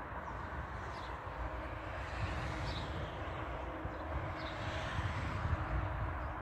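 Outdoor ambience: a steady low rumbling noise, with a few faint, short high chirps of birds.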